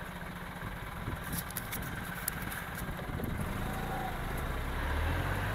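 Motor vehicle engines idling in stopped traffic at a red light, a steady low rumble, with a few light clicks a second or two in and a deeper engine rumble growing near the end.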